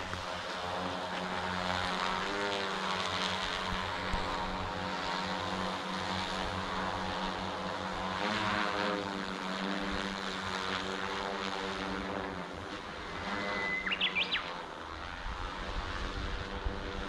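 DJI Matrice 300 RTK quadcopter's propellers humming overhead, the pitch shifting about two and eight seconds in as it manoeuvres. A bird calls once about fourteen seconds in, and wind rumbles on the microphone near the end.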